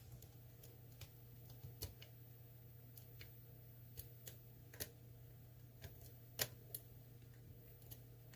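Faint, irregular small metallic clicks of a lock pick and tension tool working the pin stack of an ASSA Twin Combi cylinder, about eight in all, the loudest a little past the middle, over a low steady hum.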